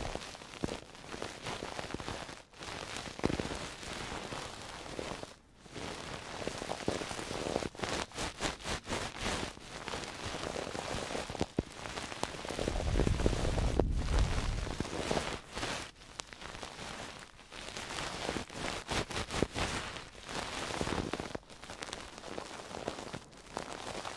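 Close-miked ASMR trigger sounds: crackly rubbing and scratching of an object right at the microphone. A quick run of rhythmic strokes comes about a third of the way in, and a low rumble of handling on the microphone comes just past halfway.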